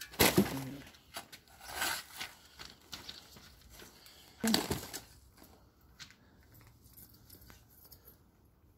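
Potting soil being scooped and scraped with a small plastic trowel and a shovel in a plastic wheelbarrow: short gritty scrapes, the loudest near the start, at about two seconds and about halfway through, with quieter scratching between.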